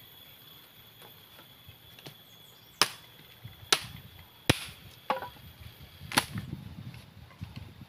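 Machete chopping a wooden pole: four sharp chops, the first about three seconds in, the rest roughly a second apart.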